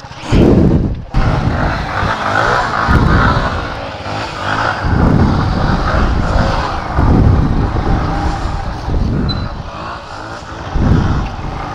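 Motorcycle engines revving hard in repeated surges, about every two seconds, as riders spin and slide their bikes in loose dirt.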